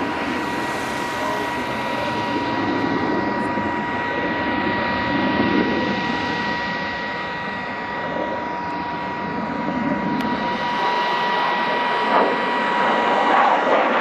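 Saab 37 Viggen's single Volvo RM8 afterburning turbofan jet flying overhead, a steady rushing jet noise that grows louder near the end as the aircraft comes round again.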